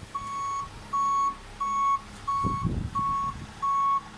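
Machine reversing alarm beeping steadily, about six even half-second beeps, most likely the telehandler backing up with a load of logs. A short low rumble of machinery comes in about two and a half seconds in.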